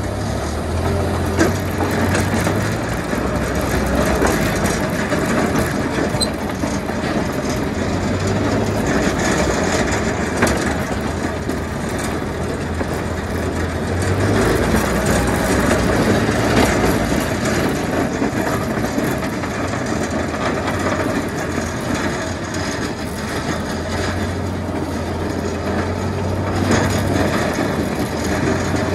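Tractor engine running under load while a front-mounted V snow plow blade scrapes and grinds along an icy, snow-packed road surface. A steady grinding noise with a low engine drone that swells and fades several times.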